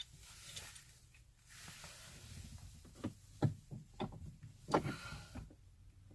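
A few faint, scattered clicks and taps of small metal hardware being handled: a hex bolt and spacer being test-fitted against a Jeep Wrangler's windshield pillar.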